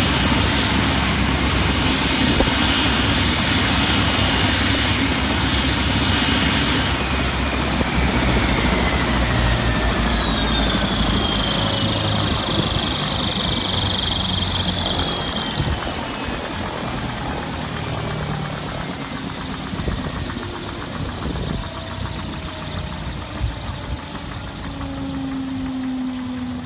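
Schweizer 333 helicopter's turbine engine whining steadily at idle during cool-down, then shut down about seven seconds in: the high whine falls in pitch and fades over the next several seconds, and the overall sound slowly dies away as it spools down.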